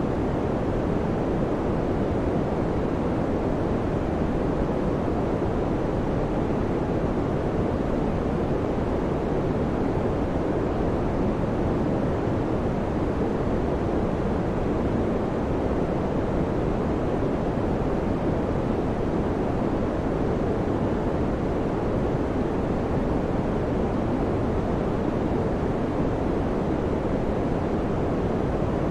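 Fan running: a steady, even rush of air, weighted low, with no hum, click or rhythm in it.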